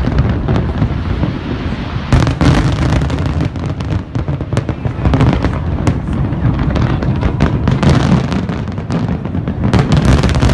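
Big aerial fireworks display: shells going off in a dense, unbroken barrage, many sharp cracks over a constant low rumble.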